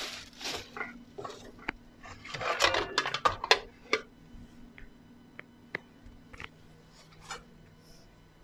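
Metal cookware clattering and scraping as a lid is fetched and set on a cooking pot on a gas hob, followed by a few light clicks and knocks.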